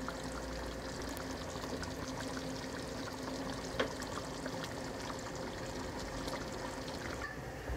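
Duck curry simmering in an open pot on a low flame: a steady bubbling with small pops from the gravy as its water cooks down, and one louder tick about halfway through.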